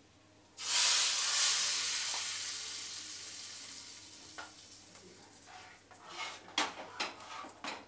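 Hot mustard-oil tadka with whole spices poured into kadhi. A sudden loud sizzle starts about half a second in and dies away over a few seconds, then come several sharp metal clinks near the end.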